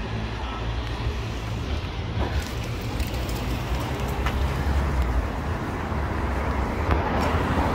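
Road traffic noise, with cars passing on a town street and a steady low rumble.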